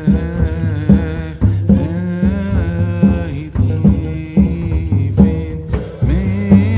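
Background music with a steady drum beat, a bass line and a sliding, curving melody.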